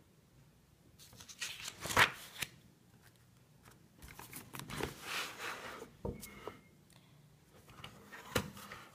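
Pages of a spiral-bound paper sketchbook being turned by hand: several bursts of paper rustling and handling, with sharper snaps about two seconds in, about six seconds in and near the end.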